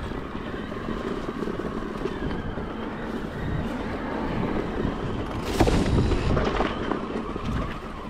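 Riding noise of a Focus Thron2 6.8 e-mountain bike climbing a dirt trail: wind rushing over the microphone and knobby tyres rolling over dirt and leaf litter. About five and a half seconds in there is a brief louder rush.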